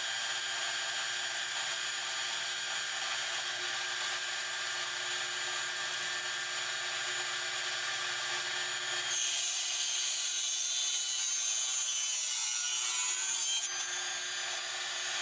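Small hobby table saw running steadily. From about nine seconds in until near the end, its blade cuts through a plastic model girder bridge section, adding a louder, higher hiss.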